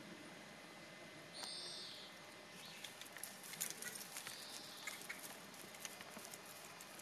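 Faint, irregular patter of hoofbeats and running footsteps as a horse is trotted in hand on grass for a lameness check, with two brief hisses.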